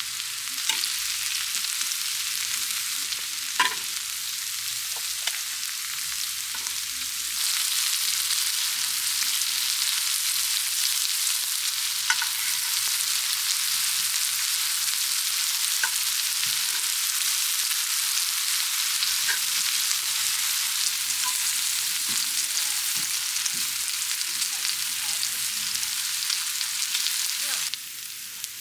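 Food sizzling as it fries on a hot cooking surface, with scattered clicks of a utensil against the pan. The sizzle gets louder about a quarter of the way in and drops off shortly before the end.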